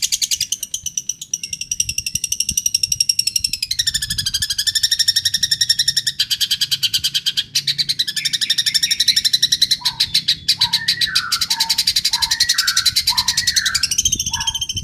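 A five-month-old long-tailed shrike (pentet) singing mimicked bird songs: a long, very rapid trill that steps down in pitch about four seconds in. From about ten seconds in it adds a run of short, quick whistled notes over the trill.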